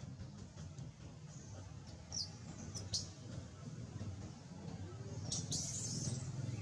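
Baby long-tailed macaque squeaking in short, high-pitched cries as it squirms against its mother's belly, with a longer, harsher squeal near the end.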